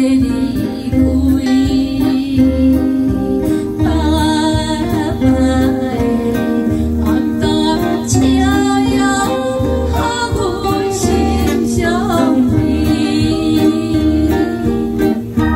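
A woman singing a Taiwanese Hokkien ballad through a microphone, backed by guitar and a steady low beat.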